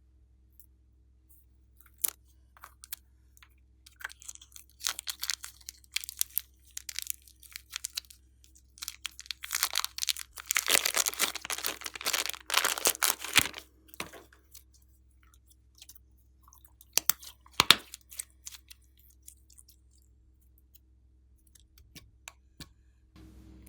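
Slime being squeezed and worked by hand, giving off irregular crackling and popping, densest about halfway through, with a few sharp pops later.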